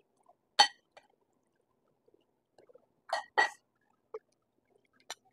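Metal spoons clinking and scraping against stainless steel bowls while eating soup and rice: a sharp clink about half a second in, a pair of longer clinks around three seconds in, and one more near the end.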